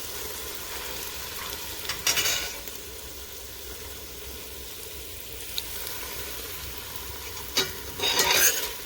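Food sizzling in a hot cooking pot, a steady hiss, with two louder bursts of noise about two seconds in and near the end.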